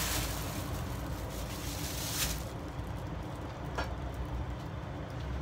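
Steady low background hum, with a rustling hiss over the first couple of seconds as an arm moves close over the cutting board, and a single light click later on.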